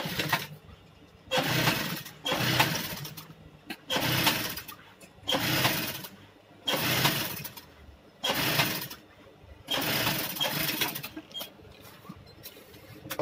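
Swift industrial sewing machine stitching a seam in a foam-backed seat-cover panel, run in about seven short bursts of a second or so as the operator starts and stops the motor to guide the fabric.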